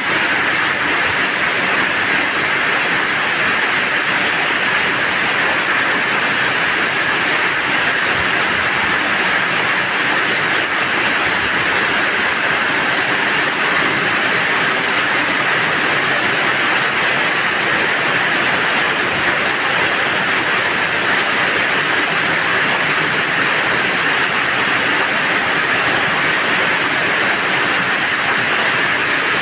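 Heavy rain falling steadily, an even hiss that never lets up.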